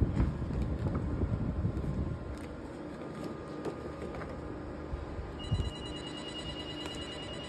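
Diode laser hair-removal machine sounding its steady high electronic emission beep, starting about five seconds in as the handpiece fires. Low rumbling and a few knocks come before it.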